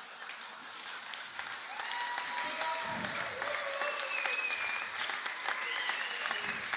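Audience applauding and laughing at a comedy roast joke, the clapping building up after about a second and a half.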